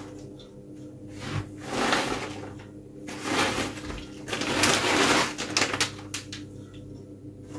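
Plastic bag of grated cheese rustling and crinkling several times as the cheese is shaken out over pasta in a pan, with a faint steady hum underneath.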